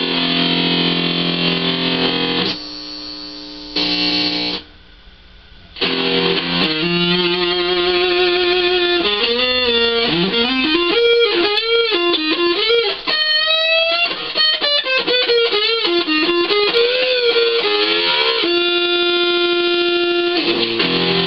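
Electric guitar played through the breadboarded fuzz section of a Schumann Two Face pedal, PNP transistor side: thick fuzzed chords, then single notes with wide string bends and vibrato, ending on a held note. A little hiss sits under the notes, from the op-amp that drives the circuit's front end.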